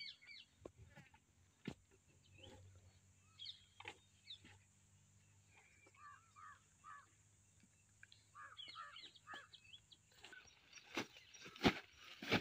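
Faint short animal calls scattered throughout over a faint low steady hum. About two seconds before the end come a run of sharp knocks and rustling as a flat lay-flat delivery hose is handled on the ground.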